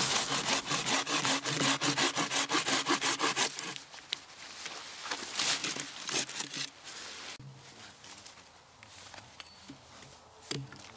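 Small hand saw cutting through a green branch: fast, even back-and-forth strokes for about three and a half seconds, then slower, quieter strokes that stop about seven seconds in.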